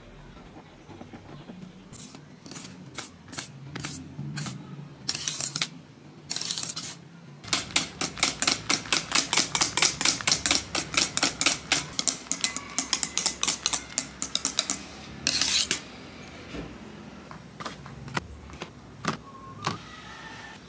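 A wire whisk mixing whipped cream and condensed milk by hand in a stainless steel bowl: quick, regular clicking and tapping of the whisk against the metal bowl, about five strokes a second, for several seconds in the middle. Before and after come scattered clicks and brief scrapes.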